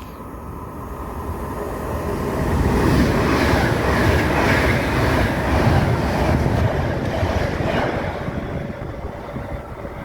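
A train passing at speed on the fast line: a rumble and rush of noise that builds over about three seconds, stays loud for several seconds, then fades away.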